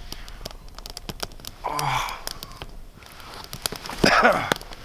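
A man's short murmured 'mm' about two seconds in and a louder breathy sigh near four seconds, over scattered small clicks and crackles.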